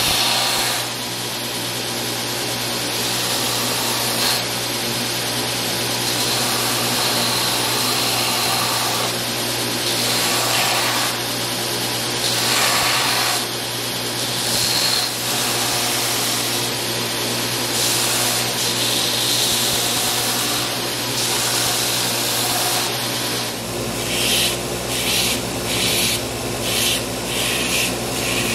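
Belt grinder running with a steady hum while wooden knife handle scales are pressed against the moving belt, giving a rasping sanding hiss that swells and fades with each pass. Near the end the passes turn into short, quick strokes, about two a second.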